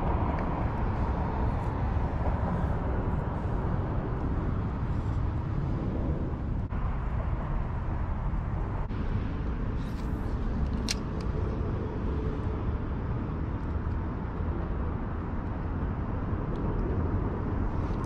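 Steady low outdoor rumble without speech, with a couple of faint clicks about ten seconds in.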